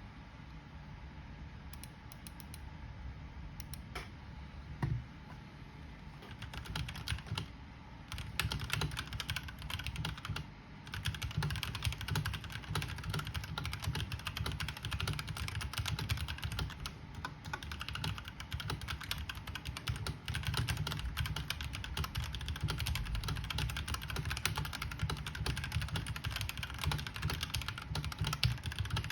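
Royal Kludge RK G68 mechanical keyboard with stock RK Red linear switches being typed on. A few scattered keystrokes come first, then fast, steady typing with one brief pause.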